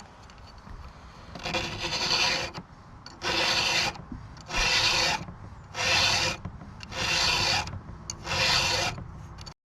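Chainsaw chain being sharpened by hand with a file: six rasping strokes, about one a second, dressing cutters damaged by hitting nails in the log.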